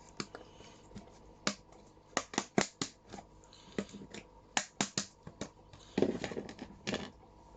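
Irregular sharp clicks and taps from hands working close to the microphone, with a short rustling scrape about six seconds in.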